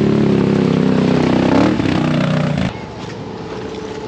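ATV engine running loud and steady under throttle, its pitch rising briefly about a second and a half in. It cuts off abruptly about two and a half seconds in, leaving a quieter steady engine hum.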